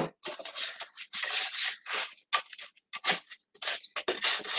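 Tin foil rubbing and scraping butter around the inside of a square metal baking tin, in a run of short, irregular strokes.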